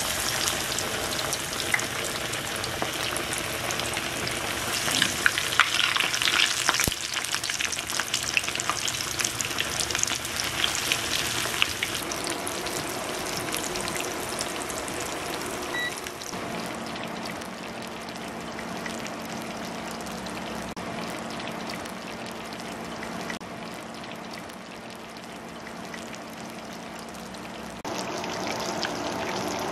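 Ramen-crumb-coated chicken thighs shallow-frying in hot oil in a cast-iron skillet: a steady sizzle thick with crackles, busiest in the first dozen seconds and then settling to a calmer sizzle. A low steady hum joins it about halfway through.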